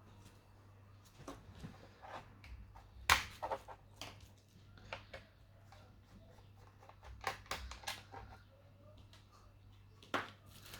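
Irregular clicks and light knocks of hands working on a laptop's plastic case and parts, the sharpest about three seconds in and another near the end, over a steady low hum.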